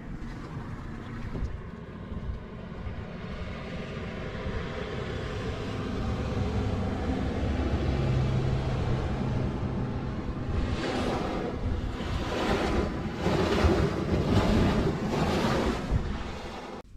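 A passing boat's engine hums, then its wake washes against the shore in about five surges, one after another.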